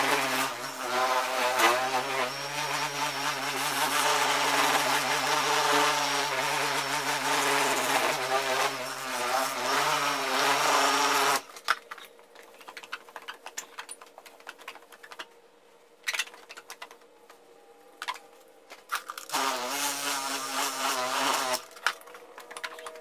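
Craftsman buffer-polisher running on a fogged plastic headlight lens, buffing in rubbing compound: a steady motor hum with a wavering pitch that stops abruptly about eleven seconds in. After that come quiet rustles and taps of a paper towel wiping the lens, then the buffer runs again for about two seconds near the end.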